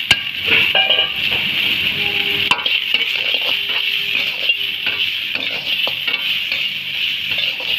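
Chicken and chopped vegetables sizzling in hot oil in a pan as they are stir-fried, a steady hiss with a spatula scraping, knocking and clinking against the metal pan.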